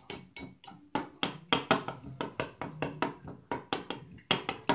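Knife blade striking a glass bowl while chopping and stirring raw oats soaked in milk: an uneven run of sharp clicks and taps, several a second.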